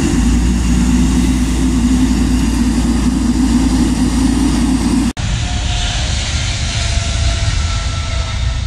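Boeing 777-300ER's GE90 jet engines running as the airliner taxis past close by, a steady deep rumble. About five seconds in the sound cuts abruptly and the jet is heard from far off, a thinner rush with a faint high whine.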